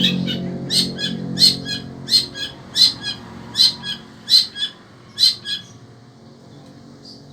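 Long-tailed shrike (cendet) calling: a run of short, sharp, loud notes in pairs, a strong note followed by a softer one, about eight pairs in quick succession, then it stops.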